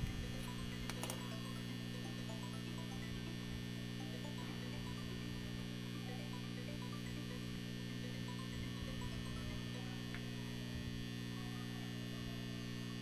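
Steady mains hum from a home-built arc welder's four microwave oven transformers, energised and idling with no arc struck. A faint click about a second in.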